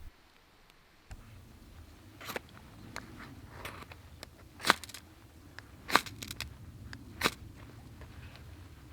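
A series of sharp clicks and knocks, a few loud ones about a second or so apart with smaller ones between, over a low steady background rumble.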